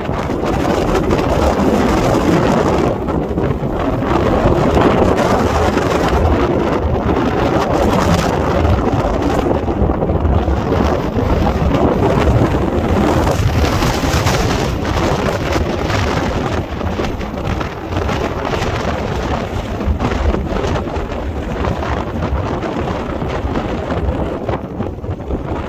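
Strong wind buffeting the microphone: loud, continuous rumbling noise that swells and eases with the gusts.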